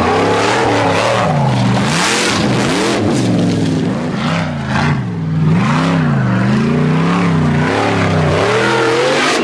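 Formula Offroad buggy engine revving hard, its pitch swinging up and down about once a second as the throttle is worked, with a hiss of gravel and dirt thrown up by the spinning wheels.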